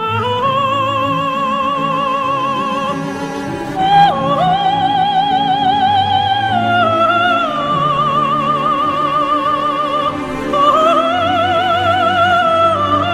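Background music: an operatic voice holding long notes with a wide vibrato, moving to a new pitch every few seconds over sustained low accompaniment.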